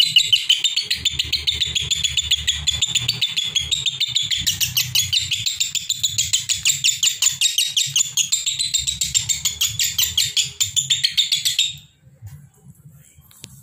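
Fischer's lovebirds chattering in a rapid, unbroken string of shrill chirps, about ten a second, that stops abruptly near the end. This is the non-stop 'konslet' singing, without any pause, that keepers value.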